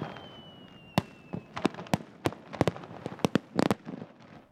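Aerial firework shells bursting: a quick run of sharp bangs and crackles, with a faint falling whistle over the first second and a half.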